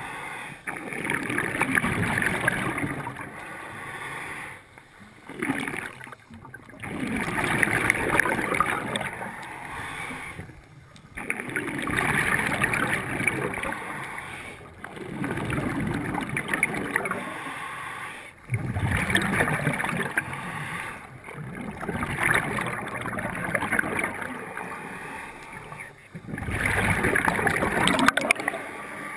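Scuba diver breathing through a regulator underwater: bubbling, rushing air-and-water noise that swells and falls away in breath cycles every three to four seconds.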